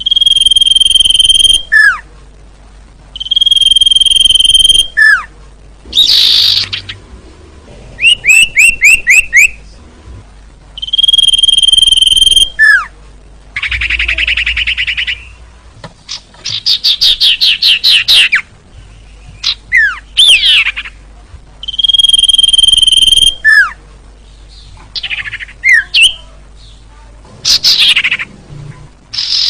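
Sirtu (cipoh, an iora) bird-lure recording: long, steady, high whistles, each dropping away in a quick falling note at the end, heard four times. Between them come fast runs of sharp chirps and harsh buzzy notes.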